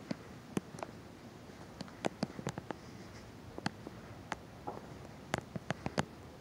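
Irregular sharp ticks and clicks from the phone's protective case knocking against the handheld phone, bunched more thickly in the second half.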